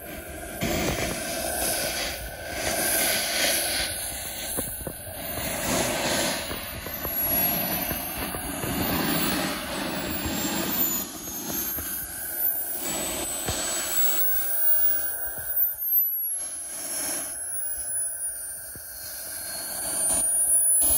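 Model jet turbine (EvoJet 220 N) running at taxi power, a steady rush with a high whine that drifts up and down in pitch, growing louder near the end.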